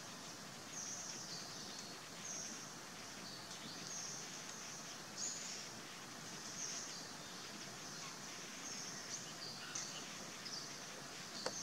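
Forest ambience: a high, buzzy call repeats about once a second over a steady outdoor hiss.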